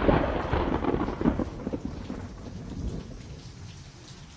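A thunder rumble dying away over rain, fading steadily from fairly loud to a faint hiss of rain.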